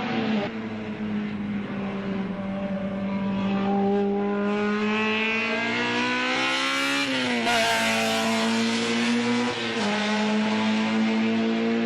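Honda racing car's engine held at high revs. Its pitch dips at the start, climbs slowly, drops sharply about seven seconds in, and dips briefly again near ten seconds.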